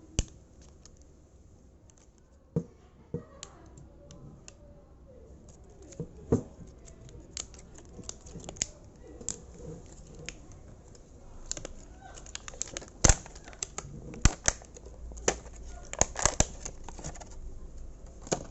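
Scattered sharp clicks and snaps of a lithium battery pack's casing and wrapping being cut and pried open, sparse at first and more frequent in the second half.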